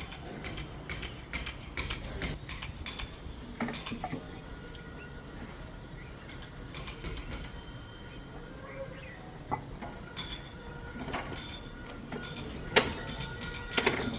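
Mechanical clicking and creaking with scattered knocks, from the rigging and handling used to set a readymade septic tank in place. There are two sharper knocks near the end.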